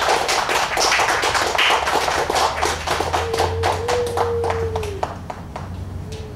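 Scattered hand claps from a small audience, thinning out and fading away. A pure sine-wave oscillator tone comes in about three seconds in, holds for about two seconds with a slight bend in pitch, then drops away, and returns briefly near the end.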